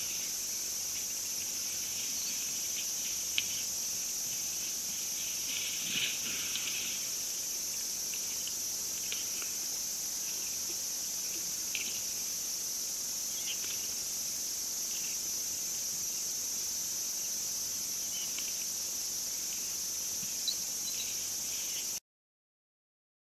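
Steady, shrill chorus of crickets or similar insects, with a few faint clicks and rustles scattered through it; the sound cuts out completely about a second before the end.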